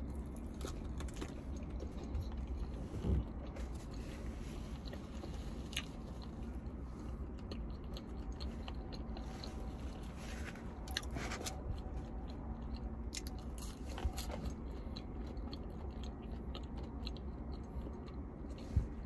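A person chewing and biting into a fast-food fried fish sandwich, with scattered short clicks of eating over a steady low hum.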